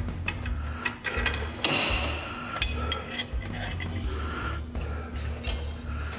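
Metal clicks and clanks as the steel lever-operated bar hook of a power rack is worked along the upright and its pin knocks into the holes, many sharp knocks at uneven intervals. Background music runs underneath.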